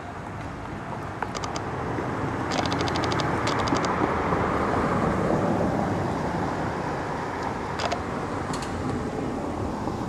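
A road vehicle passing by: its tyre and engine noise swells to a peak about five seconds in, then fades away. Short runs of rapid high clicking come in about three seconds in and again near the end.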